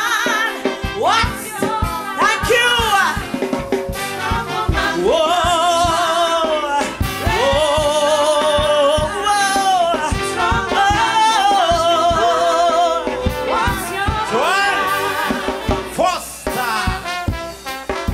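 Live calypso music: a band playing under a lead line of long, wavering held notes that scoop up into each phrase.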